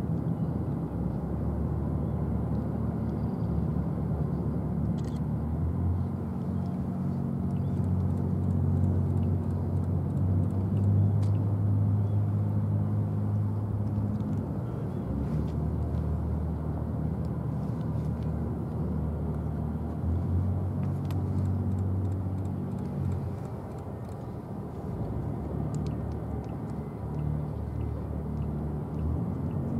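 Low, steady engine rumble that swells and eases a few times, with a few faint clicks.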